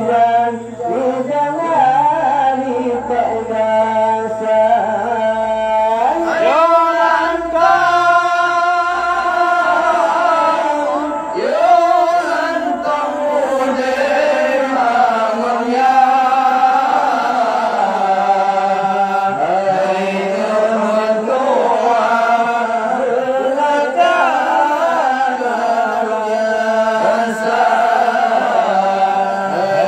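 Male voices singing an Acehnese qasidah into microphones, one singer carrying the melody and then another taking over, with long ornamented notes that slide and waver in pitch.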